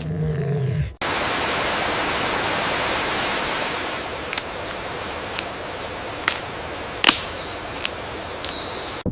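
A low, droning pitched sound that stops about a second in, then a steady rushing hiss like wind or running water, with half a dozen sharp clicks scattered through the second half.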